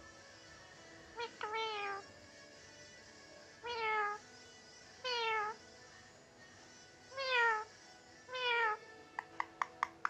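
Indian ringneck parakeet mimicking a cat's meow: about five short meows, each sliding down in pitch, spaced a second or so apart. Near the end comes a quick run of sharp clicks.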